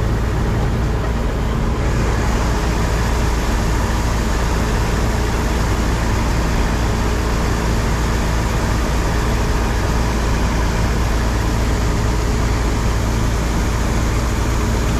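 Old Claas combine harvester running steadily at working speed, heard from the operator's seat: a low engine drone under the noise of the threshing machinery, while the unloading auger empties wheat into a trailer.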